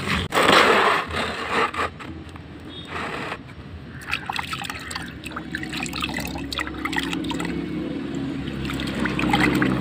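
Hands scraping loose dirt and grit on concrete at first, then splashing and rubbing in a basin of water with scattered drips and small splashes as an object is washed.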